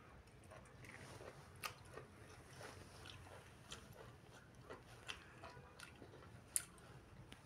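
Faint close-up chewing and biting of pork windpipe, with scattered short sharp clicks; the loudest click comes about two-thirds of the way through.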